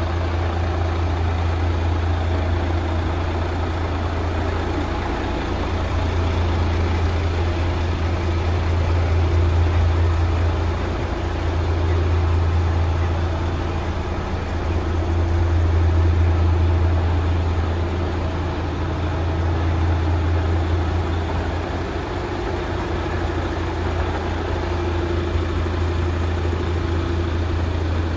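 Mercedes Actros 1844's V6 turbo diesel engine idling steadily, a deep even hum that swells and eases slightly every few seconds.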